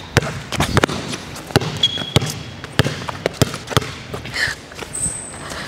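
A basketball dribbled repeatedly on a hardwood gym floor, sharp irregular bounces during one-on-one play, with a couple of short high sneaker squeaks on the court.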